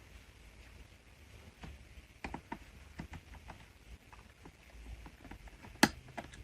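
Small scattered clicks and taps of a screwdriver working out the screws that hold a laptop's hard drive, with one sharp click near the end.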